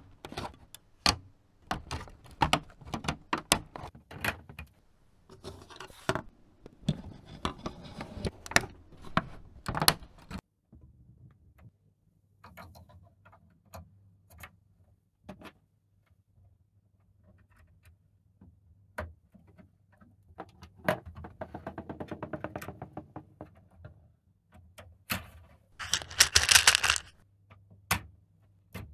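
LEGO Technic plastic parts clicking and snapping as they are assembled by hand: pins pushed into beams and sprocket wheels fitted, with many sharp clicks and small knocks. After a quieter stretch with a faint low hum, a loud rattle of loose plastic parts comes near the end.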